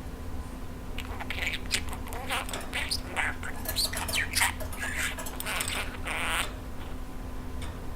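Pet budgerigar chattering and warbling in quick, short chirps with fast pitch glides, going quiet about a second and a half before the end.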